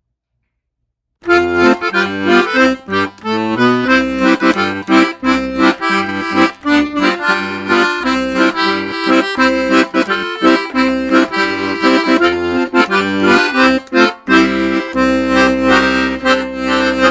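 Accordion music with chords and a steady bass, starting suddenly about a second in.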